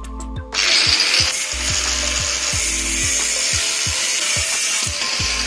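Angle grinder with a cutting disc slicing through a steel flat bar, starting about half a second in and running steadily, with sparks flying from the cut.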